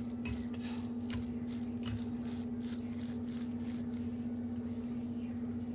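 Chopsticks mixing saucy stir-fried noodles in a ceramic bowl: soft wet squishing with a few sharp clicks of the chopsticks against the bowl in the first couple of seconds. A steady low hum runs underneath.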